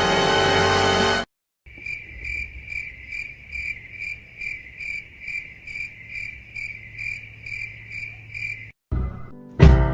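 A cricket chirping in a steady, even rhythm, about two chirps a second, the stock "crickets" sound effect. It is preceded by the tail of a music clip that cuts off about a second in, and near the end a brief different sound comes.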